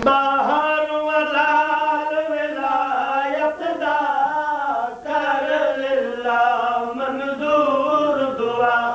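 Men's voices chanting a melodic religious recitation in long, drawn-out held notes, with a brief break about five seconds in.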